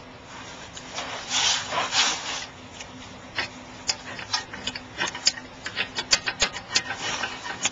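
Brake caliper being pried and wiggled off the rear brake: metal scraping for about a second and a half, then a run of light metallic clicks and knocks as it works loose.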